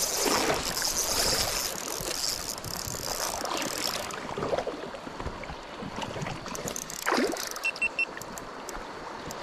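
Trout stream water running and rippling steadily, with scattered light knocks, and three short high peeps close together near the end.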